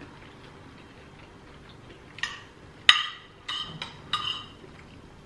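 Metal cutlery clinking against ceramic plates and a bowl during a meal: about five short, ringing clinks in the second half, the one about three seconds in the loudest.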